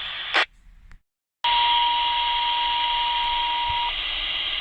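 Scanner radio hissing with static, broken by a short squelch burst and a brief dead silence. The hiss then comes back with a single steady beep tone held for about two and a half seconds.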